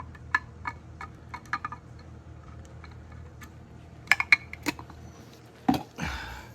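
Light metallic clicks and taps of a valve core tool working in a tire's valve stem to unscrew the core, with a cluster of louder clicks about four seconds in. Near the end comes a sharp knock and a short hiss of air escaping as the core comes out.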